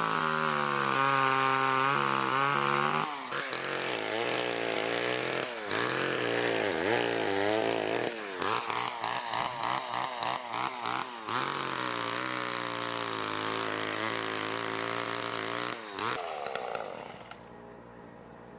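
Small gasoline engine running and revving up and down repeatedly, then cutting off near the end.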